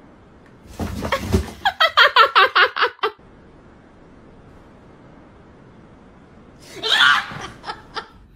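A person laughing: a quick run of 'ha-ha-ha' pulses starting about two seconds in, then a short, higher-pitched vocal outburst near the end.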